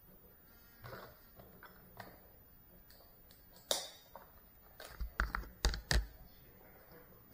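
A few sharp clicks in a quiet room, then a quick cluster of louder knocks and deep thuds about five to six seconds in.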